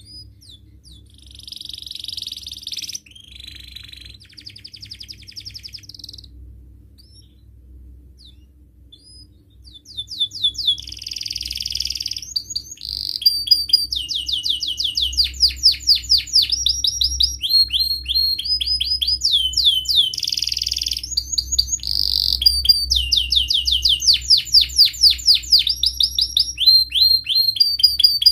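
Domestic canary singing. It gives a few short phrases in the first six seconds, then from about ten seconds in a continuous song of fast trills, each a run of rapidly repeated notes at a different pitch, with short harsh, buzzy notes between them.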